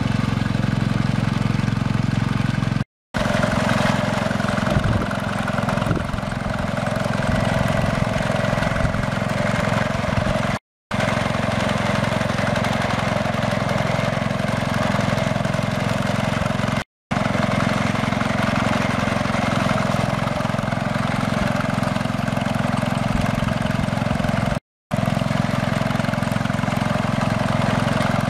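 Cub Cadet garden tractor engine running steadily as it tows a sickle bar mower through grass. The sound cuts out briefly four times.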